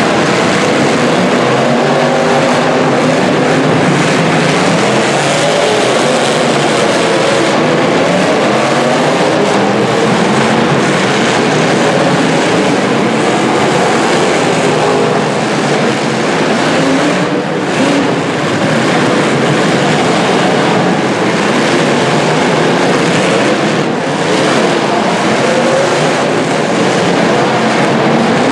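Several demolition derby cars' engines running and revving hard at once, a continuous loud mechanical din with wavering pitch.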